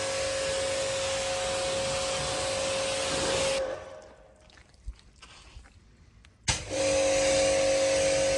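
A machine driven by an electric motor runs with a steady whine over a loud rush. It is switched off about three and a half seconds in and starts again with a click about three seconds later.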